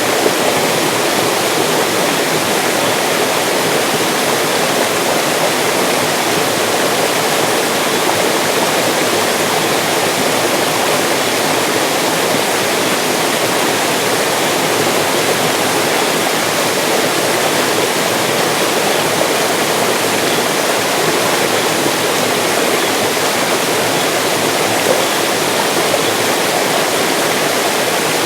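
Mountain stream rushing and splashing in a steady, unbroken flow.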